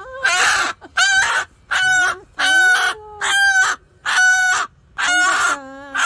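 A hen squawking loudly while held in the hands: about seven harsh, pitched calls of around half a second each, coming a little under a second apart.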